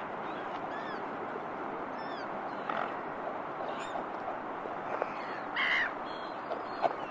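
Waterbirds calling now and then, short harsh calls from black-headed gulls and ducks, over a steady background hiss. One call a little after the middle stands out louder than the rest.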